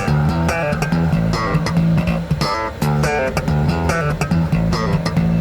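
Background music led by bass and plucked guitar, with a steady beat.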